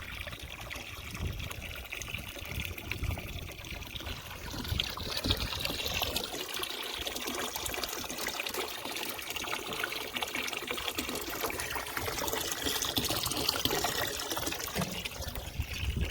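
Water pouring steadily from a hose into a cattle water tank, splashing and trickling.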